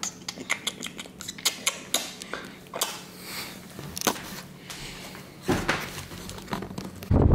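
A string of irregular light clicks and taps, with a dull thump about five and a half seconds in. Near the end a low rumble of wind on the microphone sets in.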